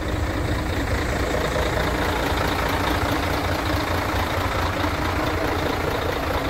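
Diesel engine idling steadily on a refrigerated truck.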